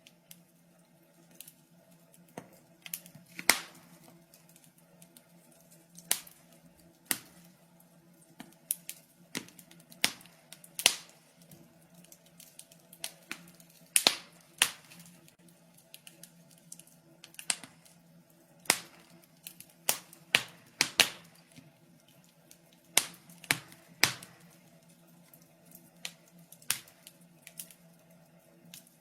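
Wood fire crackling in a fireplace: irregular sharp pops and snaps, sometimes two or three close together, over a faint steady hum.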